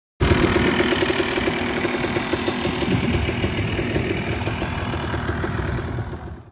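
Motocross bike engine running steadily with a rapid, even firing beat. It cuts in suddenly just after the start and cuts off suddenly at the end.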